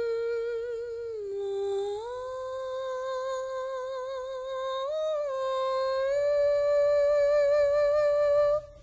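A single voice humming a slow wordless melody, holding long notes with a light vibrato; the pitch dips lower about a second in, climbs back up, and steps briefly higher around the middle before stopping just before the end.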